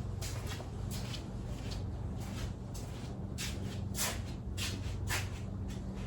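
Scattered light clicks and rustles of parts being handled, over a steady low electrical hum.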